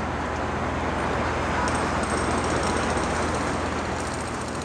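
City street traffic noise: a steady rumble and hiss of passing vehicles that swells slightly midway.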